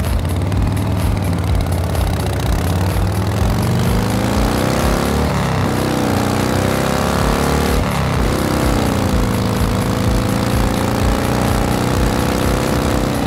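Motor-like whirring over a steady low hum, as for a toy merry-go-round spinning up to speed. Its pitch dips and climbs back twice in the middle.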